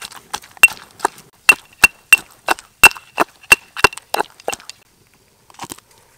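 Stone pestle pounding chili paste in a stone mortar, sharp knocks at about three strokes a second, some with a short ring, stopping after about four and a half seconds.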